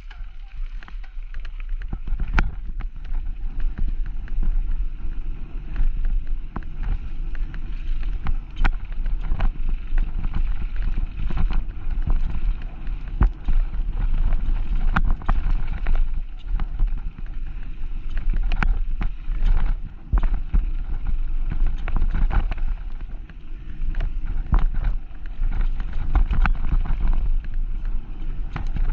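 Mountain bike descending a bike-park trail: steady wind rumble on the microphone with the bike rattling and knocking sharply over bumps throughout.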